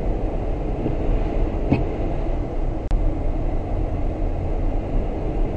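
Steady low rumble of a car driving, engine and tyre noise heard from inside the cabin, with a faint click about one and a half seconds in and a sharp tick near three seconds.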